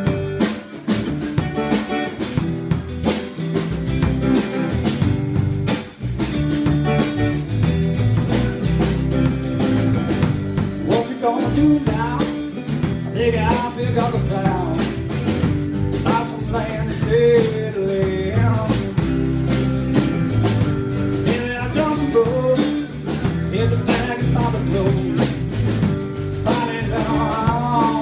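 Live band playing an upbeat folk-rock song: acoustic guitars strumming over electric bass and a drum kit keeping a steady beat. In the second half a wavering melody line comes in and out over the top.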